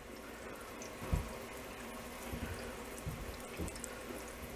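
Tap water running into a still's condenser tub, filling the pot around the copper coil worm with cooling water. A few soft low thumps come about a second in and again near the middle.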